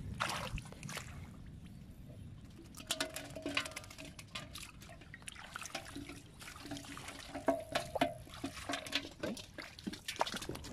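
Shallow floodwater splashing and trickling as a person handles fish in a metal bowl and wades, with many short, sharp splashes and drips.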